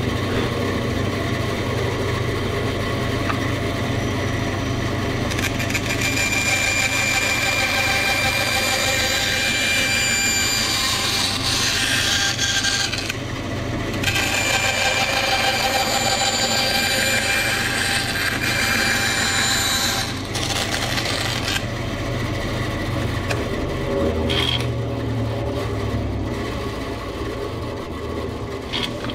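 Bandsaw running, its blade cutting notches into a board, with a steady motor hum under the louder noise of the cuts and short breaks between passes about 13 and 20 seconds in.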